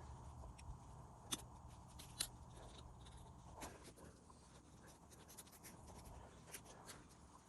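Faint scraping and a few sharp little clicks of a small fillet knife and hands working on a brook trout as it is gutted.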